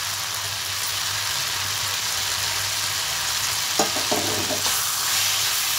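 Onions, tomatoes, roasted peanuts and roasted gram sizzling steadily in hot oil in a stainless steel kadai, with a steady low hum underneath. About four seconds in, a steel spoon clinks and scrapes against the pan as it is stirred.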